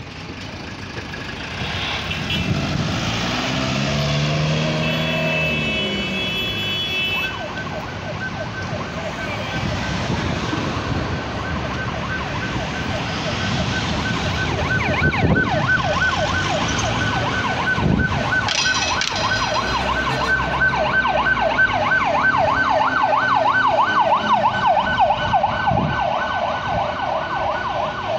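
Emergency vehicle siren sounding a fast rising-and-falling yelp. It starts about a quarter of the way in and grows louder toward the end, over the sound of street traffic with vehicles passing close by.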